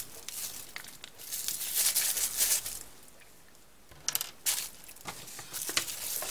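Paper rustling and crinkling as it is handled, with a couple of light knocks about four seconds in after a brief quieter spell.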